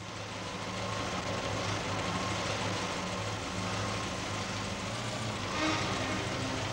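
Steady low engine rumble with a hum, building up over the first second and then holding even.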